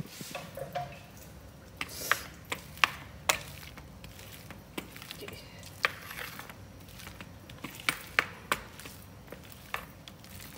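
Wooden spatula patting and pressing steamed glutinous rice down in an aluminium tray, compacting it so it won't crumble: irregular sharp taps and clicks, a couple of seconds apart or less.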